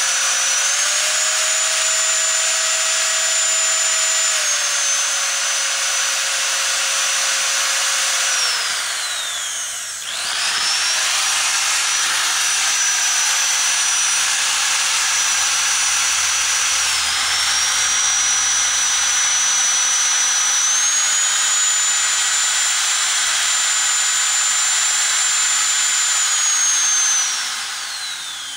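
Bare vacuum-cleaner motor running on 110 V mains, a loud high whine over a rushing noise. Its pitch steps up and down as it is switched between low and high speed. It spins down and almost stops about nine seconds in, starts again a second later, and winds down again near the end.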